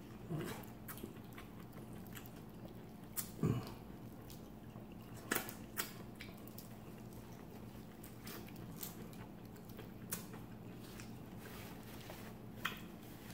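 Close-up eating sounds: chewing, biting and lip smacks with scattered sharp clicks, as corn on the cob and peel-and-eat shrimp and crawfish are eaten by hand. A low steady hum lies underneath.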